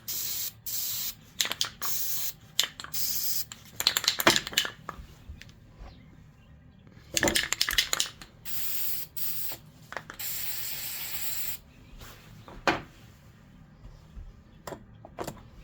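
Aerosol spray-paint can sprayed in a series of short hisses onto cardboard, the longest about a second and a half long a little past the middle, with bursts of metallic clicking and rattling in between.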